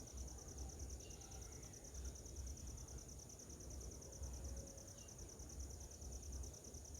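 An insect trilling steadily in rapid, even pulses, high-pitched, over a faint low rumble.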